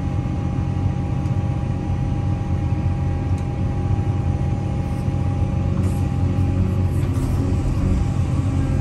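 Excavator's diesel engine running steadily under load, heard from inside the cab as a deep rumble with a thin steady tone above it, while the bucket digs soil. A few faint knocks come about six and seven seconds in.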